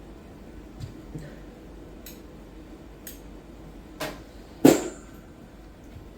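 A few light clicks and knocks, then a louder single thump about four and a half seconds in, over a faint steady hum.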